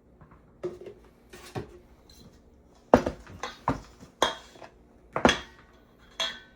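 A utensil clinking and knocking against a mixing bowl while batter is stirred, about eight sharp, irregular strikes.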